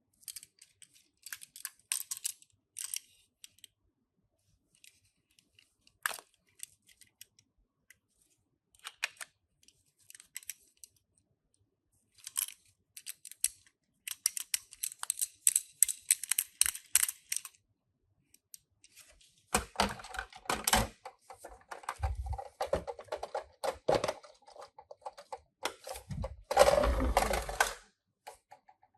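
Die-cast Tomica toy cars and their packaging being handled: scattered small clicks and taps, then longer spells of rustling and scraping in the second half.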